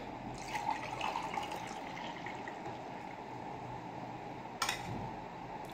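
Coffee poured from a stainless-steel French press into a ceramic mug: a steady splash of liquid filling the cup. A short, sharp knock comes about four and a half seconds in.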